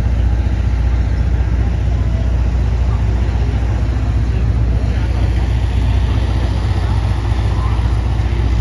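City street noise: a steady rumble of road traffic with voices of passersby mixed in.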